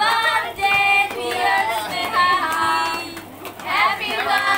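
A group of voices singing a birthday song together, with hands clapping along.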